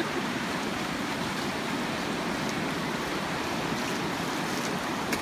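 Ocean surf washing onto the beach: a steady rush of breaking waves.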